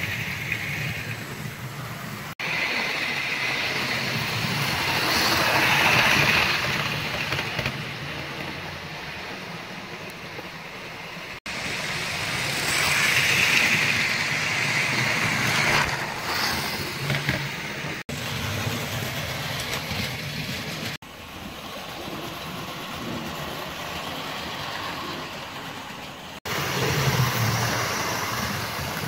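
OO gauge model trains running on sectional track: the electric motor whir and wheel noise swell as a train passes close by and then fade, twice over, with several abrupt cuts between clips.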